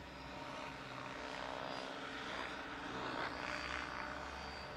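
Large electric RC scale helicopter, a Vario AS350 Ecureuil model, flying: a steady whine from its electric drive and the whir of its rotors, growing louder toward the middle and easing off near the end.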